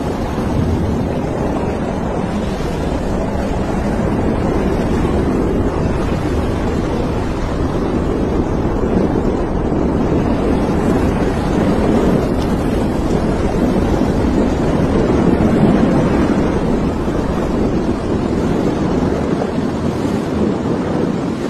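Continuous deep rushing roar of a nuclear explosion's rumble and blast wind. It swells to its loudest about two-thirds of the way through and eases off near the end.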